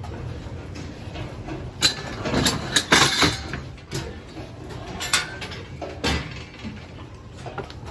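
A pig sneezing: several short, sharp, noisy bursts, the loudest about three seconds in, over a steady low background.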